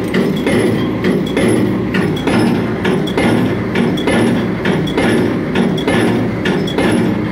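Pile-driving rig's hammer striking a precast concrete pile in a steady rhythm, about one blow a little under every second, over the continuous low running of the rig.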